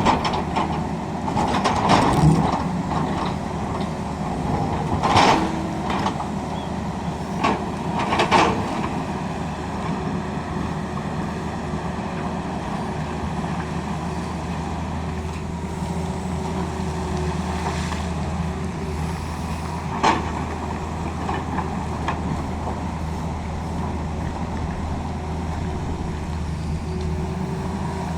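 Tata Hitachi excavator's diesel engine running steadily, with a few sharp knocks in the first nine seconds and one more about twenty seconds in.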